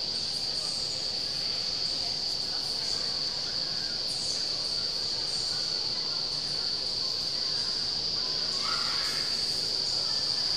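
Indoor vertical wind tunnel's airflow rushing steadily through the flight chamber, with a constant high-pitched whine on top.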